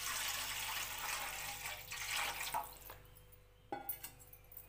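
Water poured in a stream into an empty metal kadai, splashing and sloshing, then tapering off about three seconds in. A short knock follows near the end.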